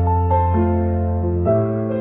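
Slow, gentle solo piano music: held chords over a low bass note, with new notes struck shortly after the start and a chord change about one and a half seconds in.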